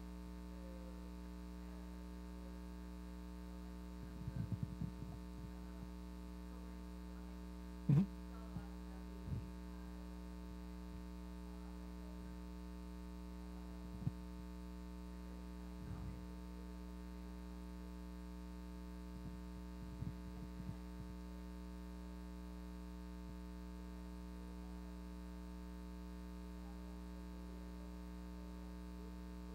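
Steady electrical mains hum, with a few short knocks and bumps scattered through it, the loudest about eight seconds in.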